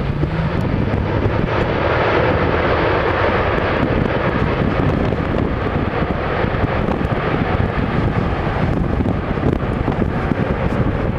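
Jet airliner flying past, its engine noise swelling about two seconds in and easing off near the end, under heavy wind buffeting the microphone.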